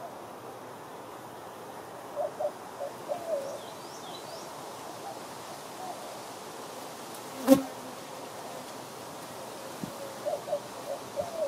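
Honeybees buzzing as they fly past the hive, each pass a short hum that bends up and down in pitch, in a cluster about two seconds in and another near the end. A single sharp knock about seven and a half seconds in is the loudest sound.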